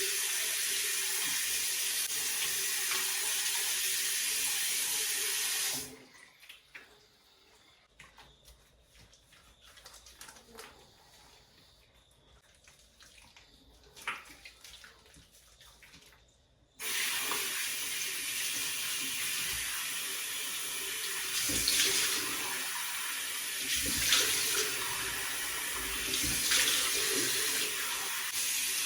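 Tap water running into a sink, shut off about six seconds in. There are a few small clicks and knocks in the lull, then the tap is turned on again and runs to the end with a few louder knocks and splashes.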